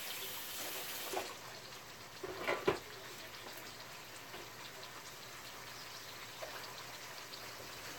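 Kitchen tap running as hands are washed, its high hiss dropping away about a second in, over a faint steady sizzle of raw chicken pieces in a wok. A single sharp knock comes a little before the middle.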